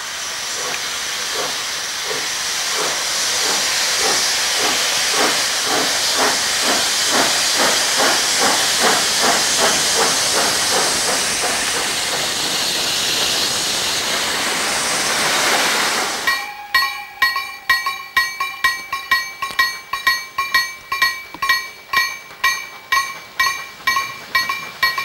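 PKP Ol49 steam locomotive moving off: a loud hiss of steam from the open cylinder drain cocks, with exhaust beats that quicken. After an abrupt change about two-thirds of the way in, sharp beats come about twice a second over steady ringing tones as the locomotive runs with its train.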